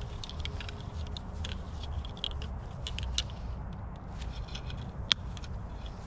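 Hands working wire and pliers around a post and branches with dry leaves: scattered small metal clicks, scrapes and leaf rustles, with one sharp click about five seconds in, over a low steady rumble.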